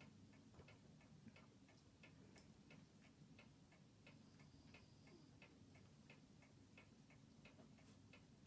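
Near silence with faint, even mechanical ticking, about three ticks a second.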